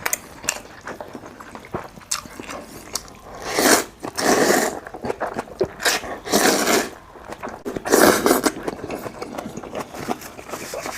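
Close-miked eating: chewing and biting with many small wet clicks, and three louder, noisier bursts of chewing or slurping around the middle.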